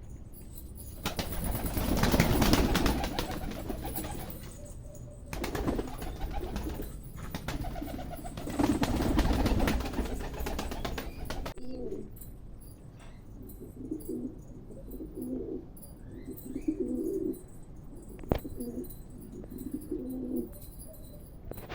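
Domestic pigeons cooing, short low coos repeating every second or so through the second half. Before that come two loud stretches of rustling and wing flapping.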